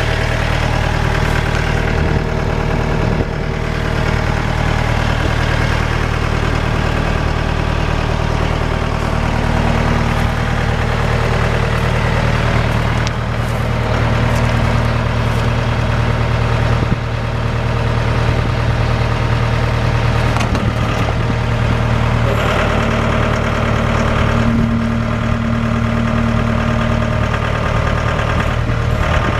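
Mahindra 1533 HST tractor's diesel engine idling steadily.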